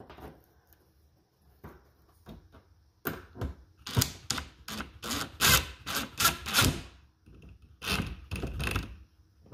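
Cordless drill-driver driving a screw into a plastic car bumper's screw hole rebuilt with epoxy. From about three seconds in come loud, irregular clicks and knocks, a brief pause, then a second run near the end.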